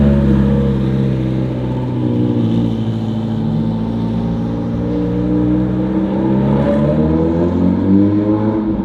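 A car engine running steadily at low revs, its pitch sinking slightly over the first few seconds and then climbing again toward the end.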